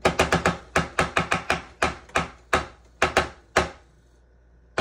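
A knife chopping on a cutting board: a quick run of sharp chops, about five a second, that stops after about three and a half seconds and starts again at the very end.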